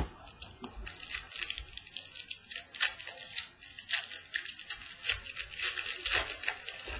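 Plastic crinkling and crackling as trading-card packaging is handled by hand, a dense run of sharp crackles starting about a second in.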